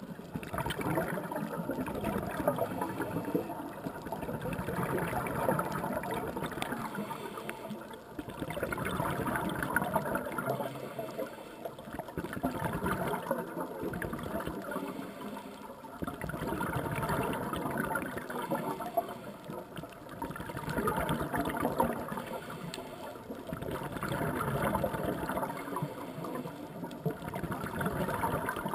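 Underwater bubbling from a scuba diver's regulator exhaust, swelling into a gurgling burst with each exhaled breath and fading between breaths, about once every four seconds.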